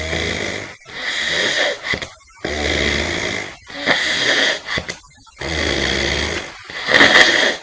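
Snoring in about three full breaths, roughly every two and a half seconds. Each breath is a deep, low snore followed by a breathier, wheezy half, with brief silent gaps between.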